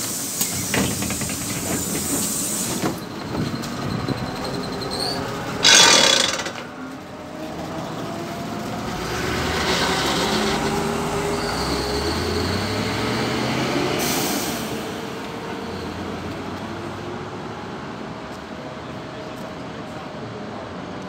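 PAZ 32054 city bus at a stop and pulling away: a sharp hiss of air about six seconds in, then the engine revving up as the bus moves off, and the sound fading as it drives away.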